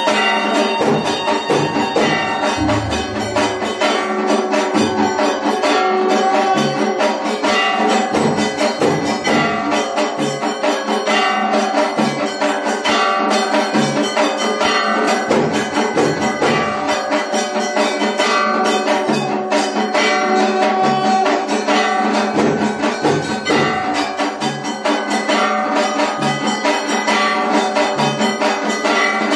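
Instrumental devotional music at a Hindu temple aarti: sustained melodic tones over repeated drum beats, with bells struck throughout.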